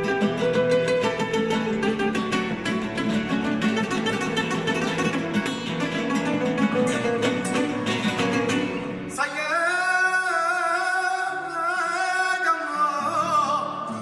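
Background song with a busy plucked-guitar accompaniment. About nine seconds in, the band drops away and a singer holds a long, wavering sung note.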